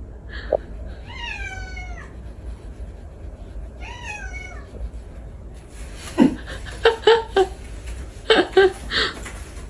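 A cat meowing: two drawn-out meows that fall in pitch, one about a second in and a shorter one around four seconds, then a run of short, louder calls in the second half.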